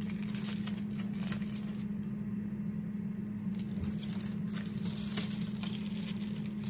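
A steady low hum throughout, with soft, scattered rustles and light crinkling as slices of American cheese are handled and laid onto the sandwiches.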